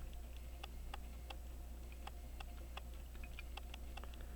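A timepiece ticking steadily, a sharp tick roughly every two-thirds of a second with fainter ticks in between, over a faint low hum.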